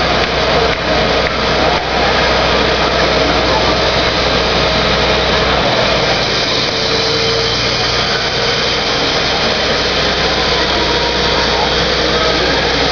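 Fire service aerial ladder truck's engine running steadily with its ladder raised, and voices in the background.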